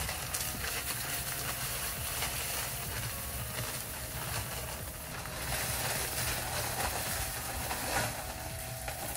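Portable drum concrete mixer running with a steady motor hum while its drum is tipped. The concrete mix slides and pours out with a gritty hiss.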